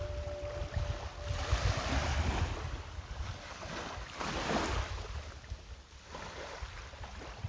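Small waves washing up the sand, swelling twice and ebbing, with wind gusting on the microphone.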